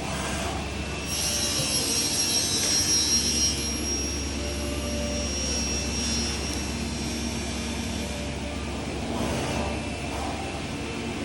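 CNC machining centre's swivelling saw blade running and machining aluminium window profiles, a steady machine noise over a low hum. A high whine rises about a second in, is loudest for a couple of seconds, then fades.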